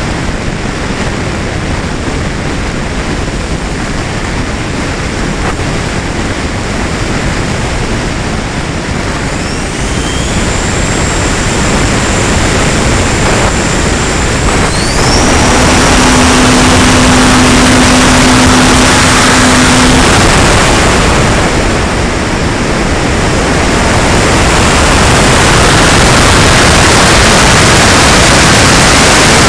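Air rushing over the onboard camera of a Valenta Volcano R/C electric sailplane in flight. About halfway through, the Jeti 2035 brushless motor whines up and spins the 20x13 folding propeller at high power for several seconds with a steady drone. Loud, steady wind rush follows near the end.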